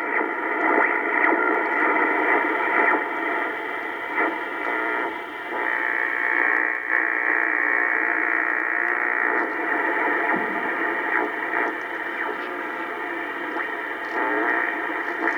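Kenwood TS-820S HF transceiver's receiver audio: steady hiss of band static through the radio's narrow audio passband, with faint steady whistling tones in it, tuned to a quiet band with no station coming through.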